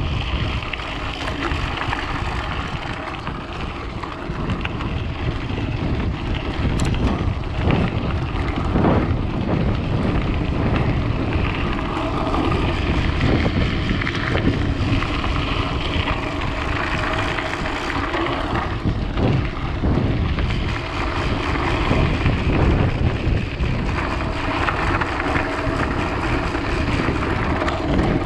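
Vehicle driving along a rough dirt track: steady engine and road rumble with wind noise on the microphone, and a single brief click about seven seconds in.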